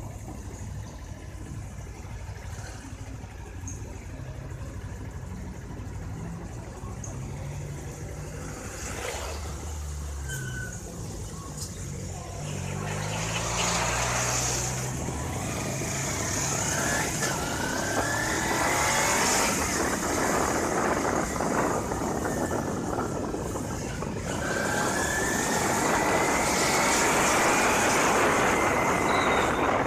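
Street traffic and the engine of the moving vehicle: low and steady for the first dozen seconds, then louder with wind and road noise as it gets going, its pitch rising twice as it speeds up.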